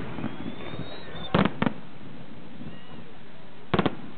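Firework shells bursting in the sky: two sharp bangs about a second and a half in, then three bangs in quick succession near the end, with a faint rising whistle before the first pair.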